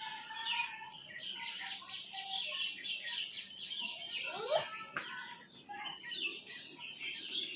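Many small birds chirping and twittering continuously, with a few sharp taps in between.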